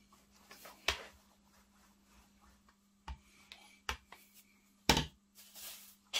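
Rolling pin working pastry on a plastic chopping board, with four sharp knocks of the pin against the board, the loudest about five seconds in, over a faint steady hum.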